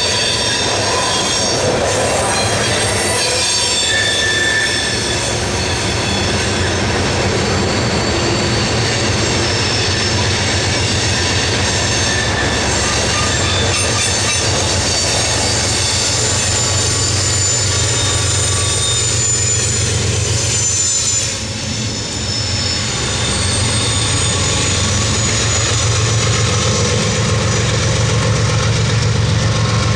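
Loaded coal hopper cars rolling by, their steel wheels squealing in thin high tones and clacking over rail joints. About two-thirds of the way through, a strong, steady low drone takes over: the diesel pusher locomotives at the rear of the train, working hard.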